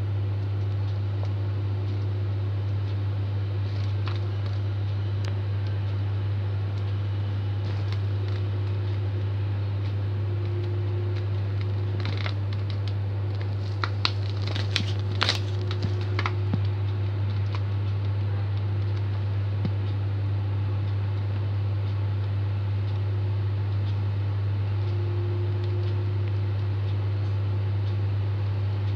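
Steady low electrical hum, with a short cluster of light clicks and taps about halfway through as ingredients are added to a mixing bowl sitting on a digital kitchen scale.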